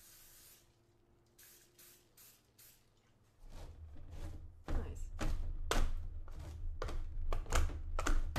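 A kitchen utensil working the sticky marshmallow cereal mixture in a tray. After a short hiss at the start and about three quiet seconds with a few faint clicks, it gives a run of sharp knocks and scrapes, two or three a second, over a low rumble.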